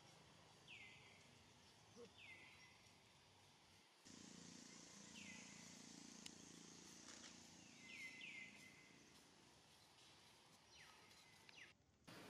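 Faint outdoor background with a short high call falling in pitch, repeated about six times at uneven intervals, twice in a quick pair.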